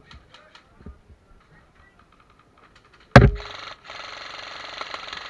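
A loud sharp crack about three seconds in, then an airsoft electric gun firing on full auto: a fast, even rattle lasting about a second and a half with a brief break, stopping near the end.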